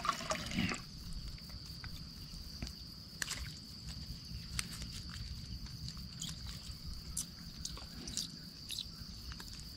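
Steady high-pitched insect buzz, with faint scattered clicks and rustles of a fine gill net being handled as a small fish is picked out of its mesh.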